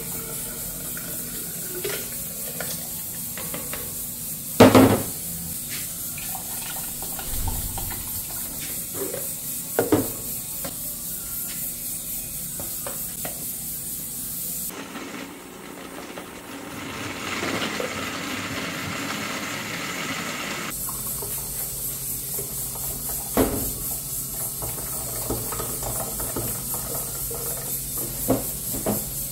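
Kitchen handling at a glass blender jar: food poured in from a bowl, with scattered knocks and clinks, the sharpest about five seconds in. Near the end blended juice is poured through a strainer into a pitcher, over a steady hiss.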